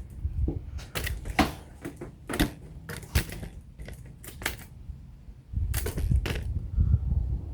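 Irregular clicks and taps of string trimmer parts being handled and fitted during carburetor reassembly, with a low rumble of handling noise near the end.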